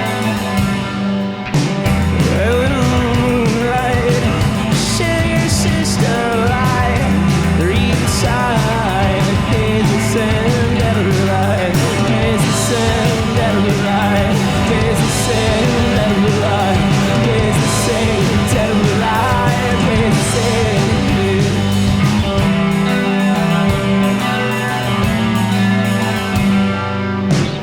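Live three-piece rock band playing a song with electric guitar, bass and drums; the full band comes in about a second and a half in.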